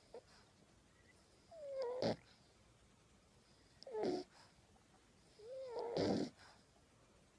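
French Bulldog puppy snoring in his sleep: three snores about two seconds apart, each with a short squeaky whine that bends in pitch.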